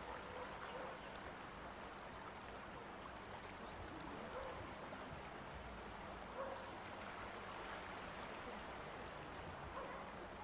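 Faint, steady rush of the flooded river's fast-flowing water, with a few faint short calls over it.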